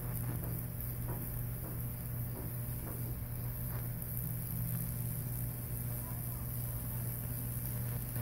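Rewired microwave-oven transformer humming steadily under load while high-voltage current burns a Lichtenberg figure into wet plywood, with faint irregular crackles and pops from the wood charring and flaming at the electrodes.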